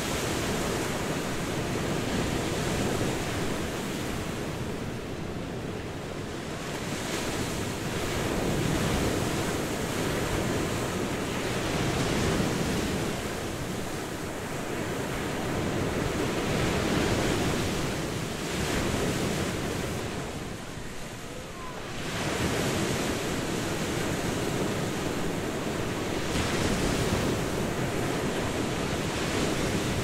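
Sea surf breaking and washing up on a beach in a continuous rush that swells and ebbs every few seconds, with a brief lull about two-thirds of the way through.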